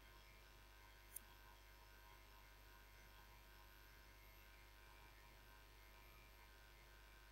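Near silence: room tone with a low steady hum, and a single short click about a second in.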